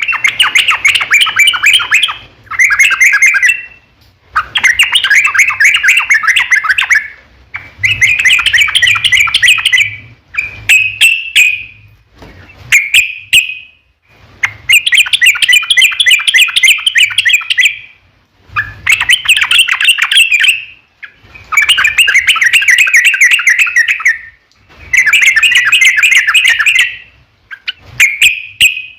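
Yellow-vented bulbul (trucukan) singing long, rapid, bubbling phrases of quick notes, repeated one after another with short pauses between. This is the loud, continuous "ropel" song used as a lure to make other trucukan answer.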